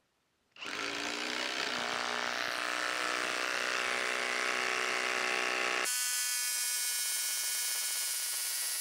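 Skil 12-volt brushless impact driver on its high setting driving a long screw into dense wood, its impact mechanism hammering steadily and rapidly. It starts about half a second in, rises a little in pitch over the first seconds, and its tone changes abruptly about six seconds in.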